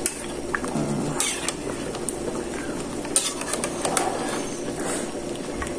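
A metal ladle clinking a few times against a metal soup pot over the steady bubbling of soup simmering on the stove.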